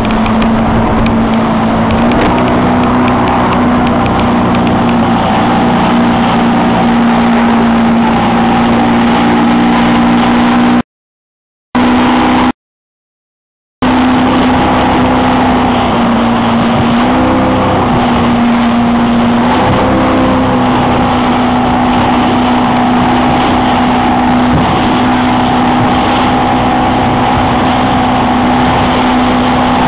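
Speedboat engine running steadily at speed while towing, a held drone that shifts pitch slightly a few times, over the hiss of wind and rushing water. The sound cuts out completely twice for about a second near the middle.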